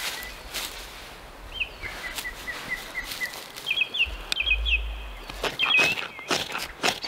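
Small birds singing: a run of short, evenly spaced notes, then quick chirping phrases. Near the end, sharp scraping strokes begin as a knife works at dry tinder.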